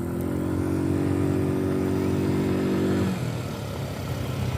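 ATV engine running at a steady throttle, then easing off about three seconds in to a quieter, lower-sounding run.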